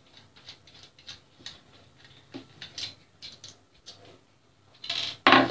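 Screwdriver working a screw out of a switch-mode power supply's metal case: a run of faint, scattered small clicks and ticks, then a louder clatter near the end.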